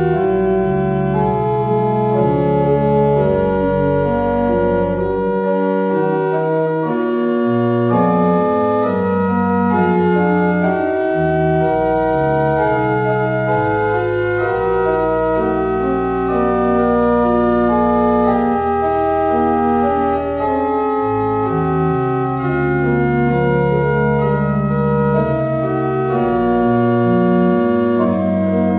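Church organ playing a postlude after the blessing: slow, sustained chords over long-held bass pedal notes.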